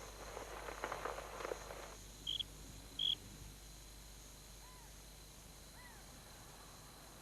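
Short high-pitched squeaks: two bright chirps about two and three seconds in, then two fainter, lower ones that rise and fall in pitch. This is the recurring mystery squeak, heard after a brief rustling at the start.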